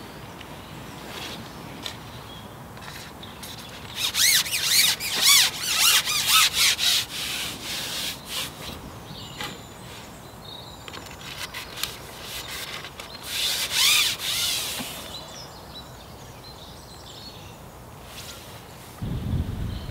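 Carbon fishing pole sliding and rubbing against hands and tackle as it is shipped back out, in two spells of scraping and squeaking, about four seconds in and again around thirteen seconds in. A low thump near the end.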